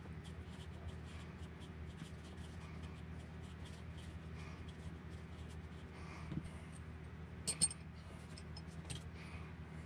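Small clicks and taps of hand tools and RC car parts being handled on a workbench, with a sharper metallic clatter about seven and a half seconds in, as a tool is set down.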